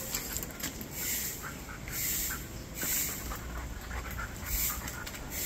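A dog panting in repeated hissing breaths.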